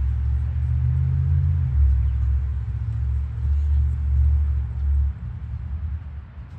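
Low rumble of a motor vehicle engine running close by, shifting slightly about two seconds in and easing off about five seconds in.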